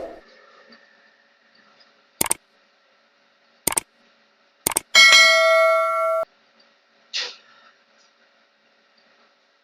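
Three sharp clicks about a second apart, then an electronic computer chime rings for just over a second and cuts off abruptly, followed by a brief, softer sound.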